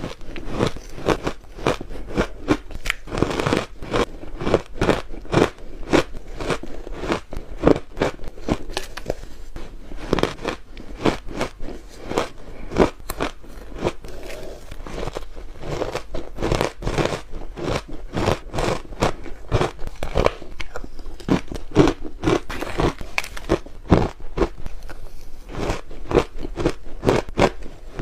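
Freezer ice being bitten and chewed close to the microphone: a continuous run of sharp crunches, several a second.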